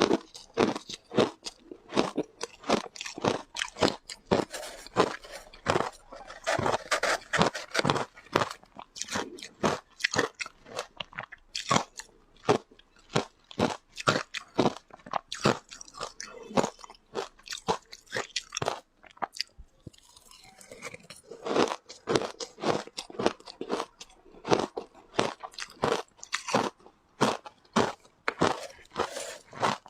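Close-miked crunching of flavoured shaved ice being bitten and chewed: a fast run of crisp crunches, with a short lull about two-thirds of the way through.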